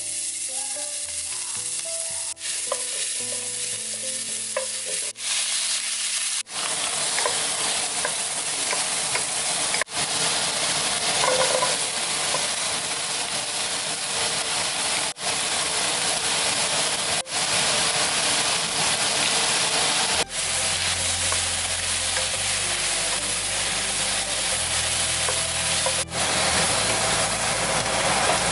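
Hot oil sizzling steadily in a frying pan, first around minced garlic, then around shrimp and halved Brussels sprouts being stir-fried with a wooden spatula. The sizzle drops out for an instant several times.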